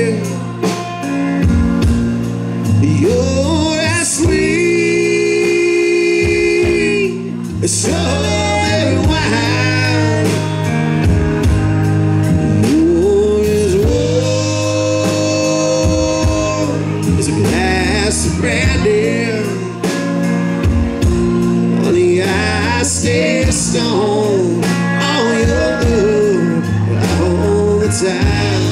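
Live band playing a slow country-blues ballad: drums, bass, keyboard and electric guitar under a lead melody of long-held notes that bend and waver in pitch.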